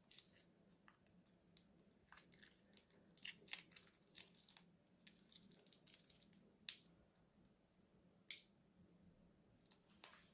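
Faint, irregular crackles and clicks as a plastic piping bag of slime is squeezed out and crumpled, with slime squishing from the tip.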